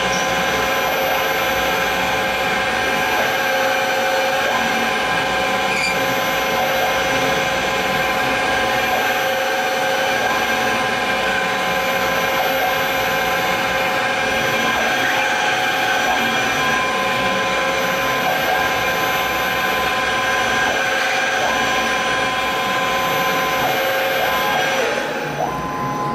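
CNC milling machine cutting into an aluminium block with an end mill: a steady, loud cutting and spindle noise with several constant whining tones. Near the end the cutting noise drops away as the cut finishes and the tool lifts out.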